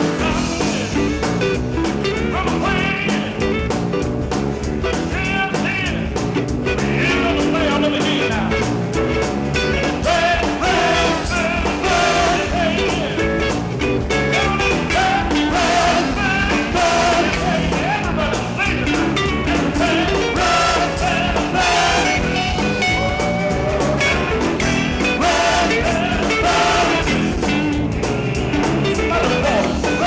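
A live blues band playing: guitars, bass and drums under a trombone, trumpet and saxophone horn section, at a steady full level.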